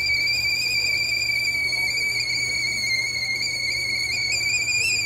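Stovetop whistling kettle whistling steadily at the boil: one high, steady shrill tone that wavers briefly upward near the end.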